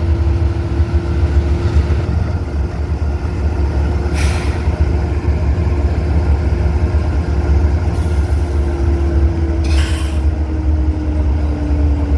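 Diesel locomotive's air compressor running with a steady, heavy low throb and a steady hum that sags slightly in pitch near the end. Two short hisses of air, about four seconds in and again near ten seconds.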